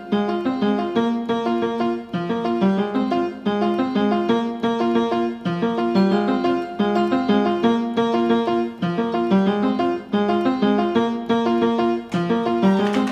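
Instrumental background music: a keyboard plays a quick, even, repeating run of notes.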